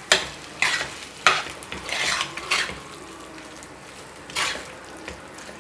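A spoon stirring chicken pieces sautéing in masala in an earthenware pot: several short scrapes and knocks against the pot over a soft sizzle, with a pause between about three and four seconds in.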